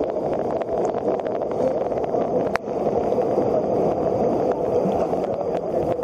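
Sea water sloshing and lapping right at the surface, a steady churning wash with a few small ticks and splashes.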